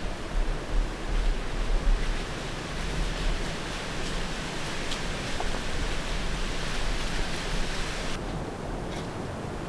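Wind noise: a steady rushing hiss with gusty low buffeting on the microphone in the first couple of seconds; the upper hiss drops away abruptly about eight seconds in.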